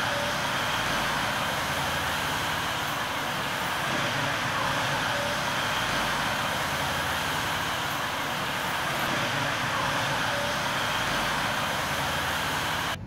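Steady rushing background noise that cuts off suddenly near the end.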